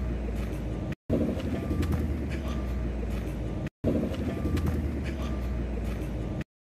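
Outdoor background noise: a steady low rumble with a few short, high chirps. The same stretch of about two and a half seconds plays three times over, each time cut off by a brief silence.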